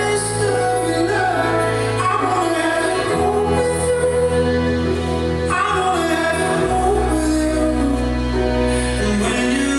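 Slow blues song playing: a singer's melody over held bass notes that change every few seconds.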